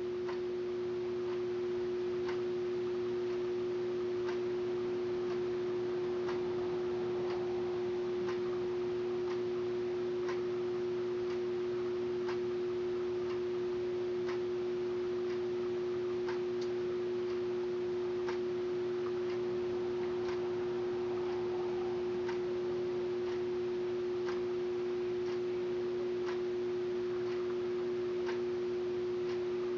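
A steady hum holding one clear tone with a couple of weaker ones beneath and above it, unchanging throughout, with faint scattered ticks over it.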